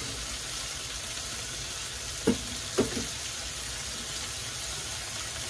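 Squid pieces frying in oil in a frying pan: a steady sizzle, with two brief louder sounds about halfway through, half a second apart.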